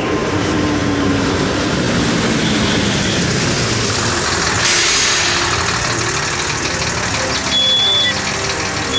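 Cartoon sound effect of a race car engine running steadily, with a sudden rushing noise about halfway through and a few short high tones near the end.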